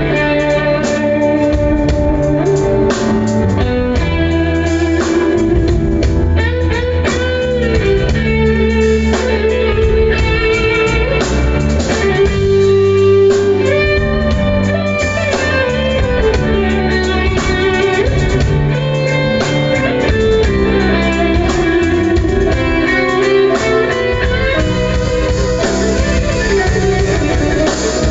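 Instrumental break of a rock song: a lead guitar plays a melody with bent, wavering notes over bass and drums.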